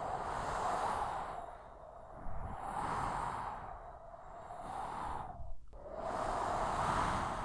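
Strong desert storm wind blowing in gusts, swelling and easing about every two seconds over a low rumble.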